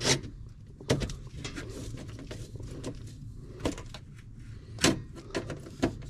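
A screwdriver driving home the mounting screw of a replacement furnace high-limit switch in sheet metal: a handful of sharp, scattered clicks and knocks of the bit, screw and tool against the metal panel.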